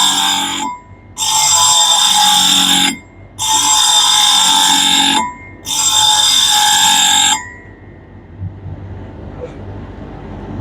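Clipper blade pressed against the spinning disc of a blade-sharpening machine in four strokes of about two seconds each, metal grinding with a harsh, high ringing screech. The strokes stop about seven seconds in, leaving a low hum.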